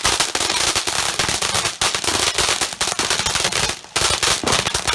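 Consumer firework going off in a dense, rapid string of crackling bangs, with a brief pause about four seconds in.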